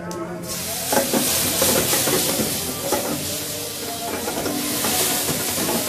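Food sizzling loudly in a hot pan over a gas burner, the sizzle starting suddenly about half a second in as the pan flares up, with a few knocks against the pan.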